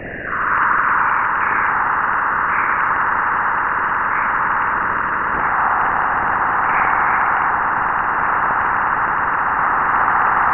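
Sonified Jupiter radio emissions picked up by a satellite: a steady rushing hiss centred in the mid-range, swelling in the first half-second and then holding level.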